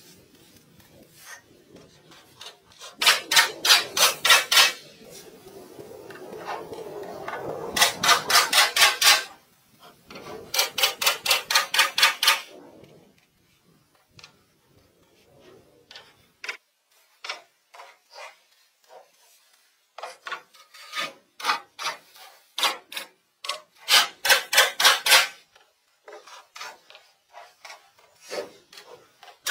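Bursts of fast, evenly spaced rasping strokes, about five a second, each burst lasting one to two seconds, with quieter scattered single strokes in between.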